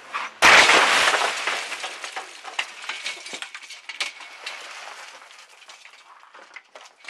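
A car rams the glass front of a storefront: a loud crash of shattering glass about half a second in, then several seconds of broken glass clattering and tinkling down, thinning out as it goes.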